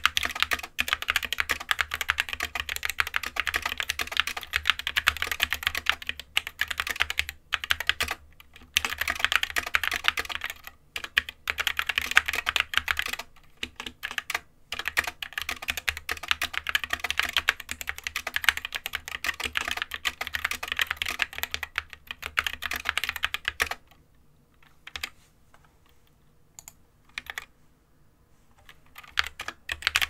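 Fast typing on an SK61 60% keyboard with Gateron optical red switches, set on a desk mat: a continuous run of key clicks with a few brief pauses. Near the end the typing thins to a few scattered keystrokes for several seconds, then picks up again.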